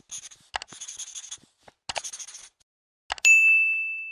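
Intro sound effects: a pen scribbling in short strokes with a few clicks, then a click and a bright bell ding about three seconds in that rings on and fades slowly.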